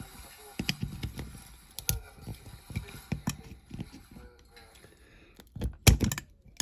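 Small clicks and knocks of a diecast model van and its loose plastic parts being handled and worked apart, with a louder cluster of knocks near the end.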